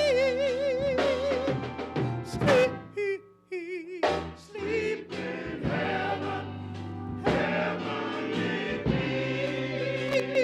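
Men's gospel choir singing held, wordless harmonies, with a high lead voice wavering in vibrato above them. The sound breaks off briefly about three seconds in.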